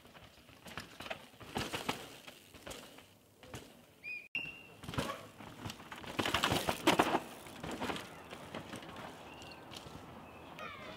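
Downhill mountain bikes rattling and clattering over roots and dirt as riders pass close by, in two bouts, the louder about six to seven seconds in. A short bird chirp sounds about four seconds in.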